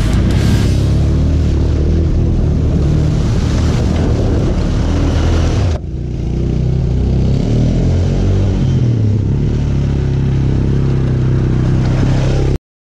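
Single-cylinder four-stroke engine of a 1995 Honda Foreman 400 ATV running hard under load. After a brief break about six seconds in, it revs up and down repeatedly, and the sound cuts off suddenly near the end.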